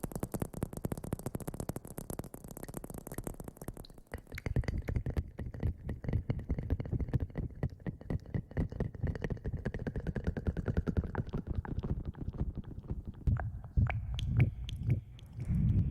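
Rapid, close-miked rubbing and scratching, a rustling ASMR trigger. About four seconds in it turns duller and deeper.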